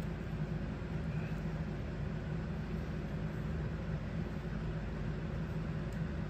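Steady low hum of room background noise, even throughout, with no distinct events.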